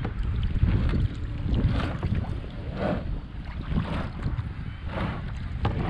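Wind rumbling on the microphone, over irregular splashes and knocks of water against a kayak being pushed off into the water.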